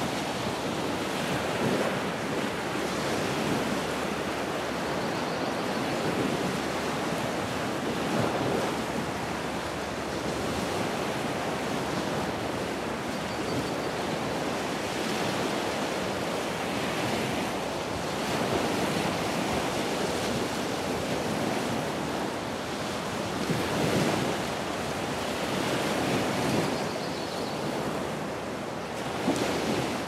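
Rushing water, steady and full, swelling and easing every few seconds.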